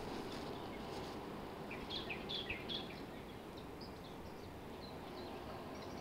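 Small birds chirping: a quick run of short, high chirps about two seconds in, then fainter scattered ones, over steady low outdoor background noise.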